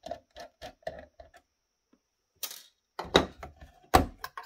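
Small Phillips screwdriver backing out a screw from an Apple AirPort Extreme router, a quick run of light clicks. A brief scrape follows, then irregular knocks and clatters as the metal antenna bracket is handled on the plastic shell, the loudest knock near the end.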